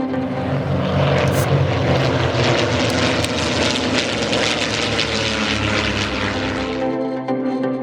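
Vintage piston-engined propeller aircraft flying past, with de Havilland Gipsy Six inline engines running steadily; the sound cuts off sharply about seven seconds in.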